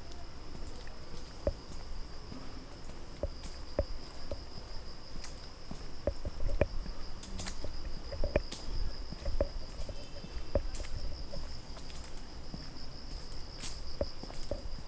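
Insects keeping up a steady, high, finely pulsing trill, with a hiker's footsteps on the trail at a walking pace; the footfalls are the loudest sounds.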